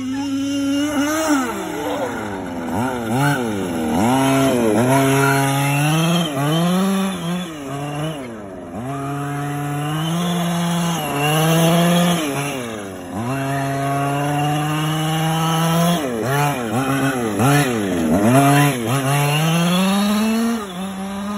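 Large-scale RC short-course truck's small two-stroke gas engine being driven hard, revving up and dropping off again and again, with a few longer held high-revving runs.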